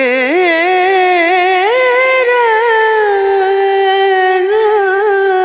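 Background music: a Hindi song with a high singing voice, likely a woman's, holding one long, wavering note that slides up about a second and a half in.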